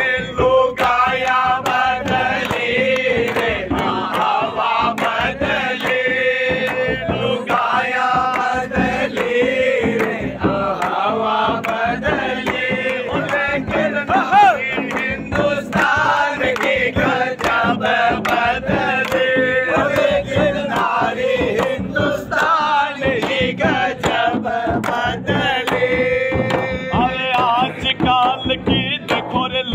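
Men singing a Holi faag folk song together, the lead voice backed by a chorus, to a large frame drum beaten by hand in a steady rhythm.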